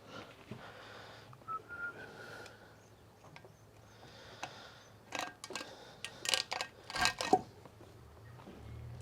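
Metal parts being handled in a workshop: a cluster of sharp clinks and knocks about five to seven and a half seconds in, some with a brief ring, over a faint low hum.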